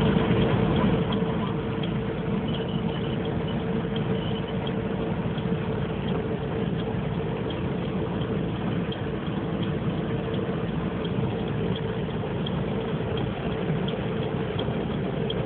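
Rain falling on a car's windscreen and body, heard from inside the cabin as a steady wash with many small ticks of drops, over the steady hum of the car's engine running.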